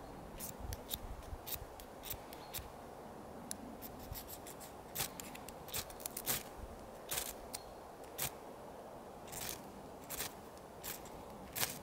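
Small metal striker scraped down a ferrocerium (ferro) rod over and over, two dozen or so short, irregular rasping strokes, some in quick pairs, striking sparks onto dry grass tinder to light it.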